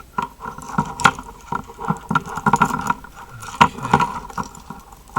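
Keys and a car alarm remote on a metal keyring jangling and clicking as they are handled, the remote being worked off the split ring: irregular small clinks and knocks.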